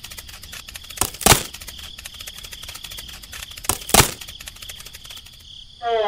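Cricket chirring ambience: a steady high trill with fast even pulses. It is broken by two sharp double knocks, one about a second in and another at about four seconds.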